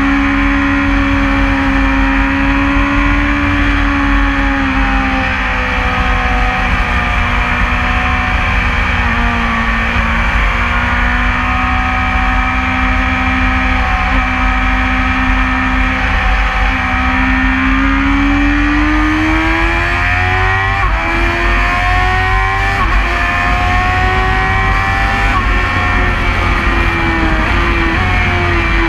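2016 BMW S1000RR's 999 cc inline-four engine pulling at track speed, heard from on board over low wind rush. Its pitch holds and dips through the corners, then climbs in steps with brief breaks from about two-thirds through, and falls near the end.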